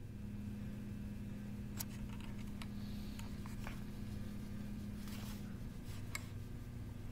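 Quiet room tone: a steady low hum with a few faint, short clicks scattered through it.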